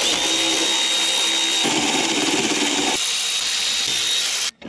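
Cordless electric ratchet running continuously with a steady high motor whine as it turns a bolt on the generator's stator end bracket; the sound changes a little about 1.7 and 3 seconds in and stops abruptly near the end.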